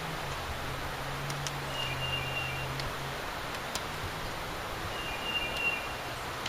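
Steady outdoor background hiss with light rustling and a few faint clicks, and two brief high-pitched tones, one about two seconds in and one about five seconds in.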